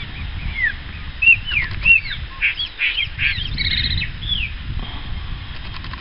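A bird calling: a quick run of short chirps and whistles, many arching up and down or falling in pitch, over a steady low rumble.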